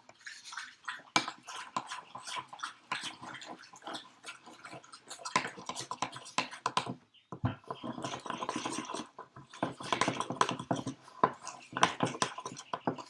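A large spoon stirring thick, clumpy flour, salt and water dough in a mixing bowl: quick irregular scraping, clacking and squelching, with a short pause about seven seconds in.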